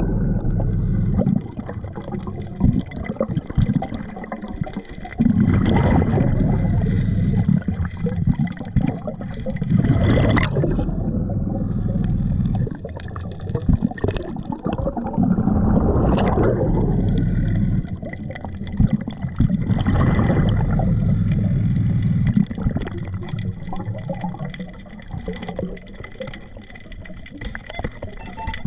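A scuba diver breathing underwater through a regulator. Every few seconds exhaled bubbles rush out in long, loud, gurgling bursts, with quieter stretches between breaths.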